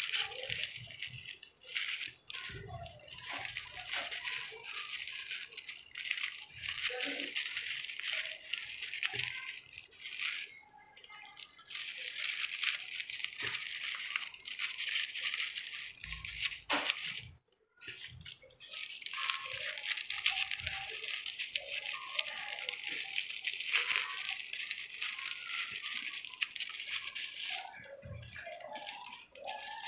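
Paper rustling and crinkling continuously as hands handle and shape a paper lotus flower, briefly cutting out about halfway through.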